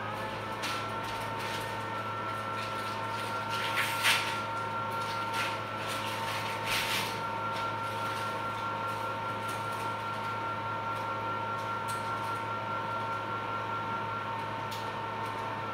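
Phacoemulsification machine sounding a steady two-note tone that steps up in pitch just after the start and then holds. A tone like this is the machine's audible signal of aspiration vacuum while lens material is drawn out. Under it runs a low steady hum, with a couple of brief clicks about four and seven seconds in.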